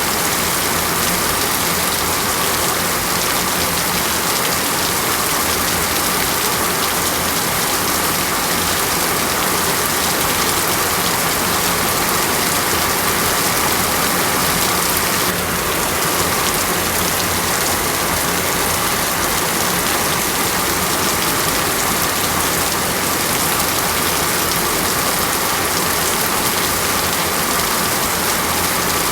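Steady rain, an even hiss of many drops with no let-up, dipping slightly in level for a moment about fifteen seconds in.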